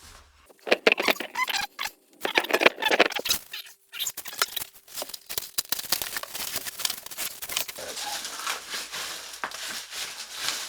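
Packaging being torn and rustled by hand as a rubber bumper plate is unwrapped, with scratchy ripping and crackling and many small clicks and knocks.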